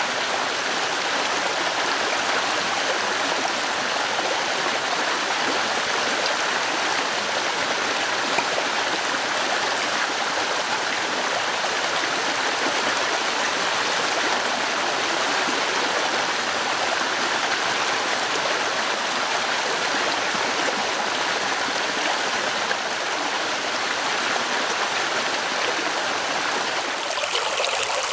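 Mountain headwater stream flowing, a steady rush of water with no breaks. About a second before the end the sound changes slightly to a different stretch of water.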